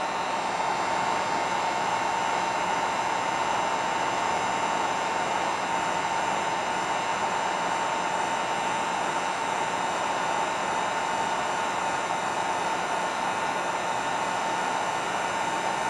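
Handheld electric heat gun running on low, a steady rush of blown air with a thin constant whine, heating heat-shrink tubing on a wire.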